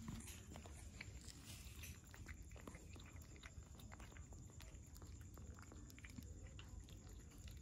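A mother cat and her kitten eating rice from a metal bowl: faint, irregular chewing and small clicks of eating.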